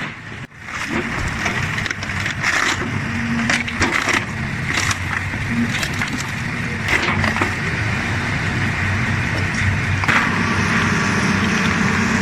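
Heavy excavator engine running under load with repeated cracking and crunching impacts, like material being broken up; from about ten seconds in the engine note turns steadier with fewer impacts.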